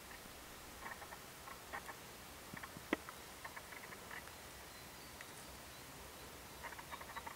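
Faint crunching footsteps on a sandy rock path, coming in short clusters of small ticks, with one sharper click about three seconds in.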